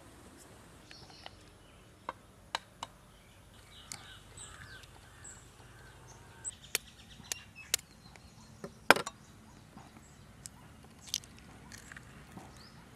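Irregular sharp clicks and knocks, a dozen or so scattered through, the loudest about nine seconds in, with faint bird chirps behind.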